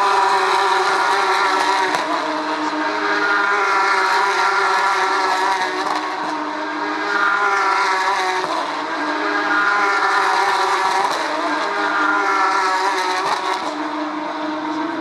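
A field of Porsche 911 GT3 Cup race cars running flat out, their flat-six engines overlapping and rising in pitch through the gears, dropping back at each shift and climbing again every two to three seconds.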